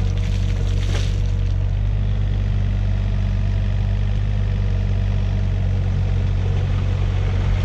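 Heavy-equipment diesel engine running steadily at an even speed, a constant low hum with no change in revs.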